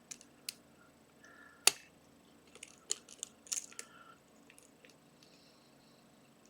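Scattered metallic clicks of a lock pick and tension wrench working the pins of a six-pin pin-tumbler challenge lock. The pins are being picked back up after several set pins dropped. The loudest click comes about one and a half seconds in, with a quick run of clicks between about two and a half and four seconds.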